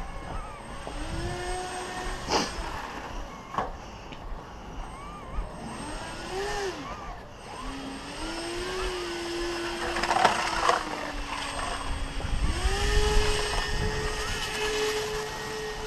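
RC airboat's brushless electric motor and propeller whining as it runs over snow, the pitch rising and falling with the throttle and stepping up near the end. Wind noise runs underneath, with a couple of sharp knocks early on as the hull bumps the snow.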